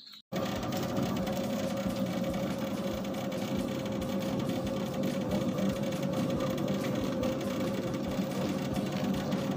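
Homemade 180-watt dough mixer running steadily while it kneads dough in its stainless-steel bowl: an even motor hum with a steady whine on top. It cuts in abruptly a moment after the start.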